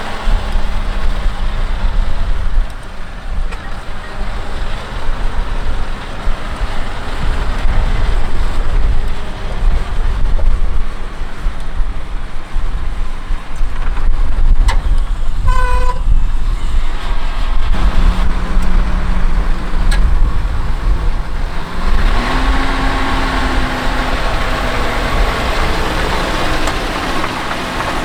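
John Deere 6250R tractor's diesel engine working under load while pulling a mounted plough, with a deep steady rumble. About halfway through, a short tooting tone sounds. Later the engine note rises as the revs pick up.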